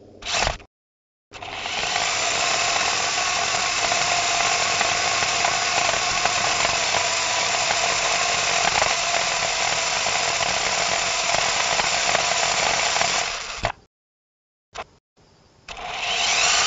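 Parrot Jumping Sumo robot's electric wheel motors and wheels running as it drives over the road surface, a steady mechanical whir and rolling noise. It starts after a short burst about a second in and cuts out abruptly near the end.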